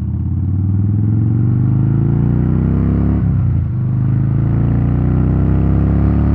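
2010 Harley-Davidson Softail Rocker C's 96B Twin Cam V-twin accelerating hard, sounding mean: the engine note rises, dips at an upshift about three seconds in, then climbs again.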